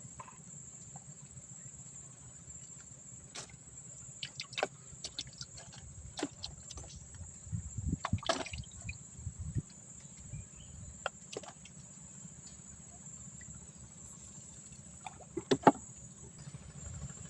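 A steady, high-pitched chorus of night insects, with scattered short clicks, knocks and small watery sounds from handling on the water's edge, the loudest knocks about fifteen seconds in.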